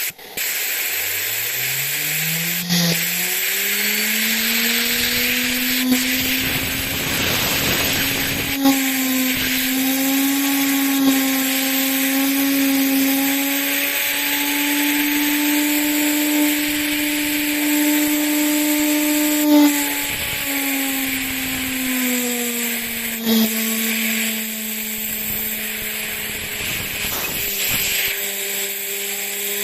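3D-printed Tesla turbine with a rotor of hard-drive platters, driven by compressed air and spinning very fast. Its whine rises in pitch over the first few seconds, then holds high over the steady hiss of the air jet, dipping briefly a few times and settling a little lower near the end.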